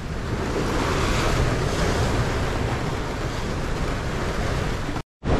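Wind blowing across the microphone over the rush of waves along a sailboat's hull, as the boat sails hard and heeled in strong wind and whitecaps. The sound drops out abruptly for a moment near the end.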